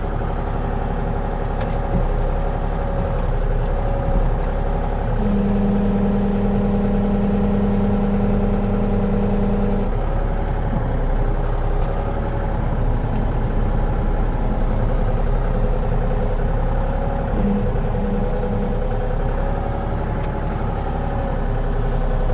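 Diesel engine of a compact earthmover running steadily while it moves dirt. A steady low whine joins in for about five seconds, starting about five seconds in.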